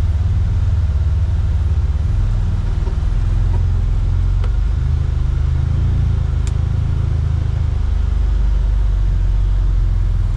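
Side-by-side UTV engine running steadily on a trail, heard from on board as a deep, even drone, with a couple of sharp clicks midway.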